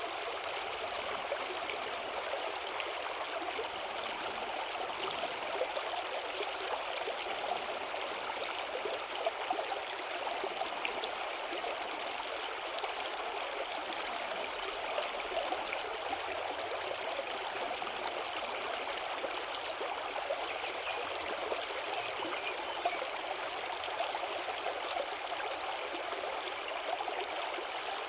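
The Apple River flowing: a steady, unbroken rush of running water.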